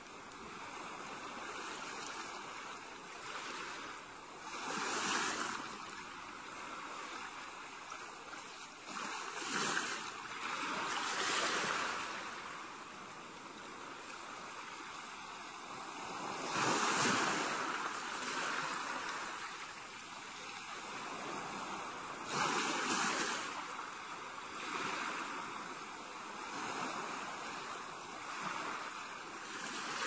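Small ocean waves washing onto a sandy shore, each swell rising to a hiss and fading away, a new wash every few seconds.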